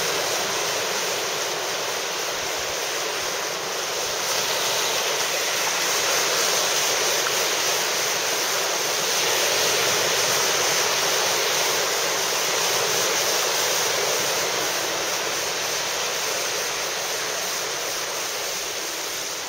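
Surf breaking and washing up the beach: a steady rushing that swells and eases slowly in loudness.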